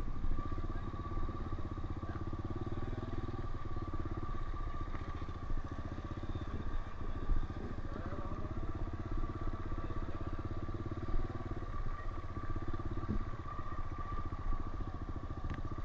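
Honda CRF125F's small air-cooled single-cylinder four-stroke engine running steadily while the bike is ridden along, with a fast, even run of firing pulses.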